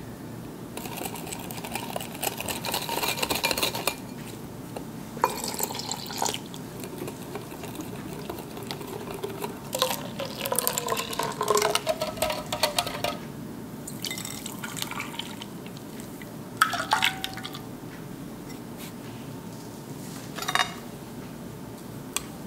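Wire whisk rattling and scraping against a ceramic bowl in several bursts with short pauses, beating egg yolks, sugar and cornstarch with milk into a thin, frothy custard base, with liquid splashing as it is stirred.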